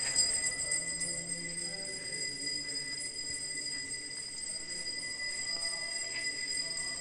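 Faint music over a steady high-pitched whine.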